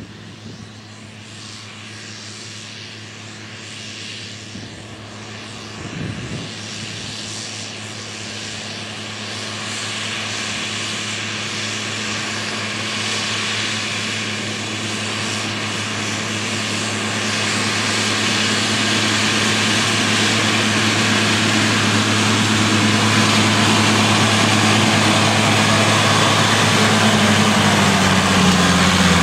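New Holland TM120 tractor's diesel engine running steadily under load while pulling a seed drill, growing louder as it approaches. Its pitch shifts slightly near the end.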